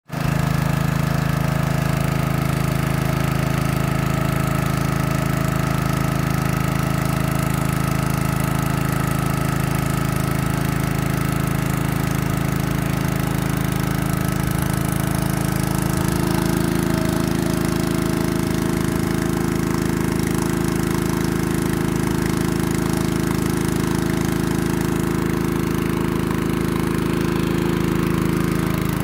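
Honda WB30XD water pump's single-cylinder four-stroke petrol engine running steadily under load while it pumps water out of a flooded field. Its tone shifts slightly about sixteen seconds in, with no change in speed.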